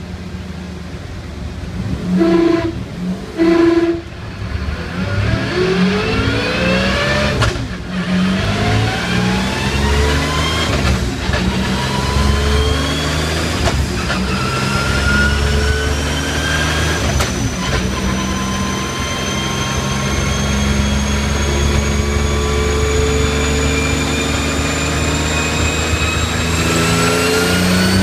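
Noble M400's twin-turbo V6 accelerating hard through the gears of a dog-box transmission on a dyno, after two short loud blips about two and three seconds in. Its pitch climbs in each gear with about four quick upshifts, then pulls in one long rise in top gear, a high whine climbing along with it.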